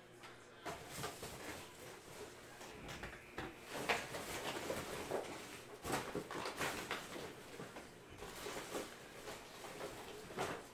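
Scattered rustling and light knocks of objects being handled and moved on a desk, with a couple of sharper clicks about four and six seconds in.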